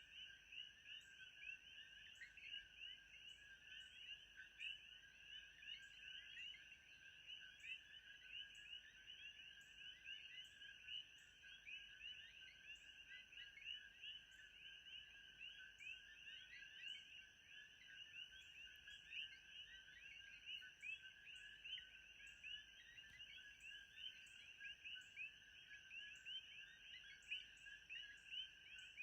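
Faint, dense chorus of many small chirping calls, running on without a break.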